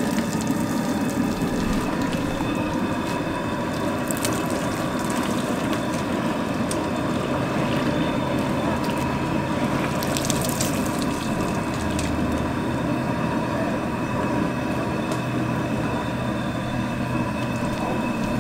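Hot scalding water poured again and again from a metal pan over a hog's carcass in a barrel, splashing and running back into the water in the drum. The steady splashing goes on throughout.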